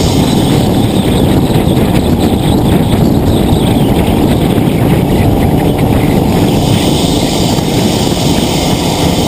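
Nissan GT-R cruising on a highway, heard through a low-mounted exterior camera: a loud, steady rush of wind buffeting and road noise that covers any clear engine note.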